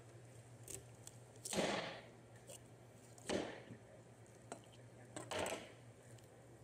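Large knife cutting through a whole raw chicken on a cutting board: three short cutting strokes about two seconds apart, with faint clicks and knocks between them.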